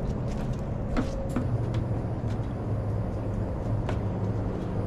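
A steady low mechanical hum, with scattered faint clicks and ticks over it.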